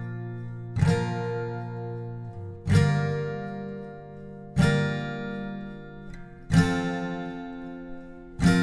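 Background music: an acoustic guitar strumming slow chords, one strum about every two seconds, each chord left to ring out and fade before the next.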